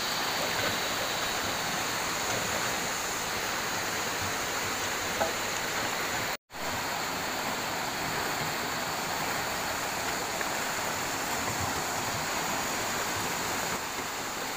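Fast, shallow river water rushing over rocks in a steady hiss. It drops out for a split second about six seconds in.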